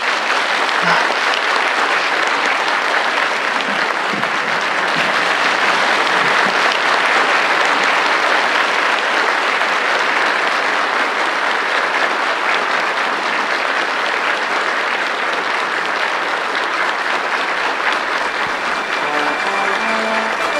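A large crowd applauding steadily. Near the end, the instrumental intro of an enka song begins beneath the clapping.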